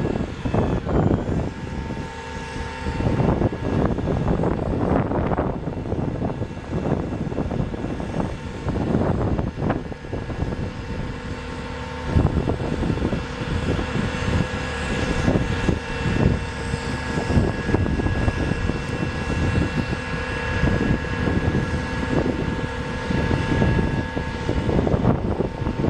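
Diesel engine of a digger derrick truck (International DT530 inline-six) running steadily to power the hydraulic boom while it is operated from the bed controls, with a steady whine of several high tones over the engine drone.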